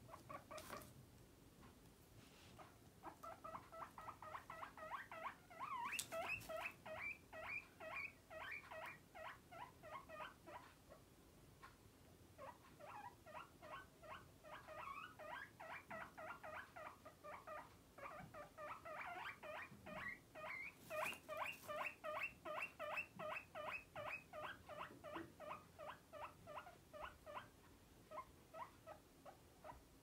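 Guinea pig whistling (wheeking): a rapid series of short high squeaks, about four a second, in two long runs with a brief pause about eleven seconds in.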